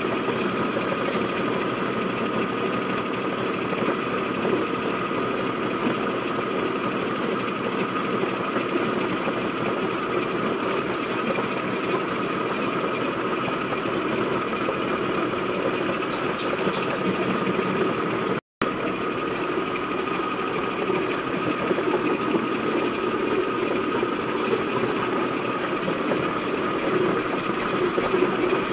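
Powered grinding mill with a metal funnel hopper running steadily as ginger is fed in and milled into powder, a constant motor whine over a dense grinding rumble.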